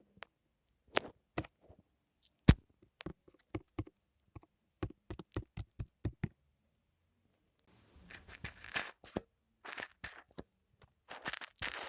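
Foam handled up close for ASMR: a string of sharp taps and clicks for about six seconds, then, after a short pause, denser crackling and scratching.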